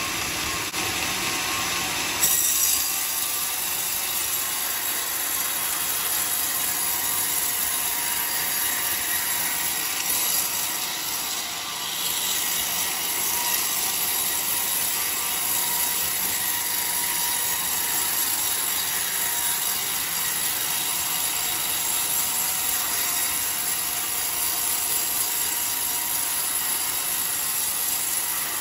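Homemade band sawmill's steel blade ripping lengthwise through a coconut-palm log, a steady saw noise with a brief louder spike about two seconds in.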